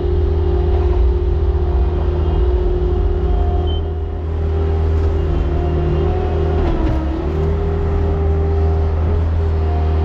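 A farm vehicle's engine running steadily with a strong low hum. Its pitch dips briefly about seven seconds in, as if under a moment of load, then recovers.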